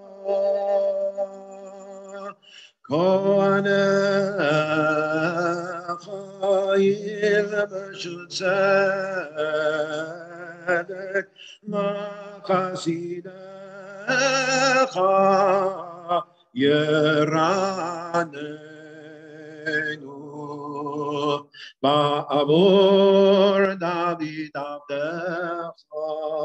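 A man singing the Hebrew liturgy for returning the Torah scroll to the Ark in a slow chanted melody, with short breaks between phrases.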